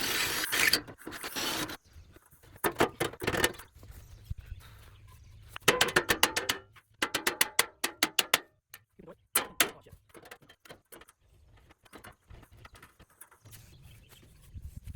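Metal chair parts and tools being handled: irregular clicks, taps and clanks, some in quick runs, with two short scraping noises near the start.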